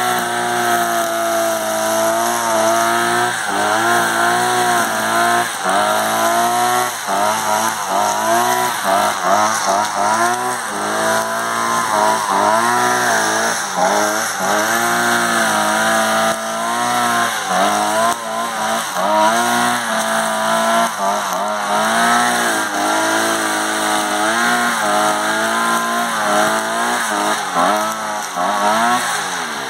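Einhell GE-BC 43 AS petrol brushcutter's two-stroke engine running hard as its nylon line cuts grass, the pitch rising and falling over and over as the throttle is worked. Near the end it drops back toward idle.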